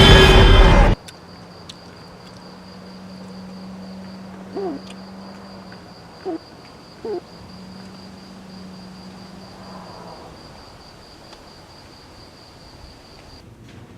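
A loud horn-like blare cuts off abruptly about a second in. A night ambience follows: crickets chirring in one steady high tone under a faint low hum, and three short owl hoots around the middle.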